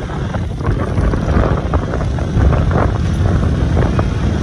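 Wind buffeting a helmet-mounted microphone on a moving motorcycle, over the bike's running and road noise on a dirt road.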